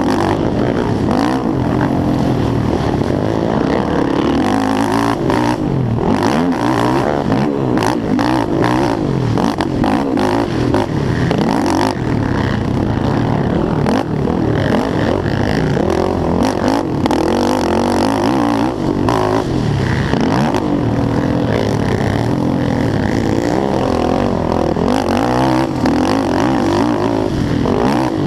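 Yamaha YFZ450R race quad's single-cylinder four-stroke engine revving hard and backing off over and over through the gears, with frequent sharp knocks and rattles over the top.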